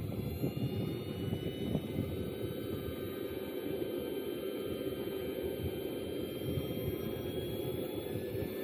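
Wind buffeting the microphone in gusts, with a faint high turbine whine from a model jet engine rising slowly in pitch.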